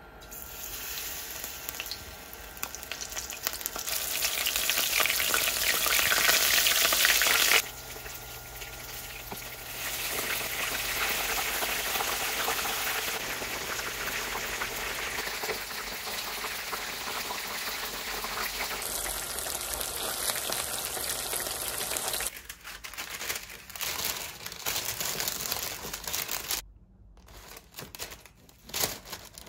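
Battered shrimp deep-frying in hot oil in a frying pan: a loud, dense sizzle. It grows louder over the first several seconds, breaks off abruptly, then runs on steadily a little quieter. Near the end it gives way to light clicks and taps.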